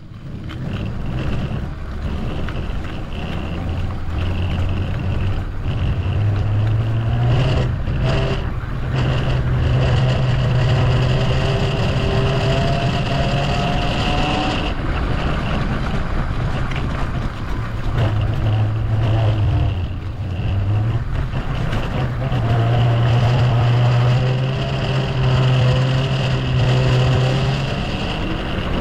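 Uwinfly DF5 electric bicycle's hub motor running with a strange noise: a steady low hum with a fainter whine that rises in pitch in the first half.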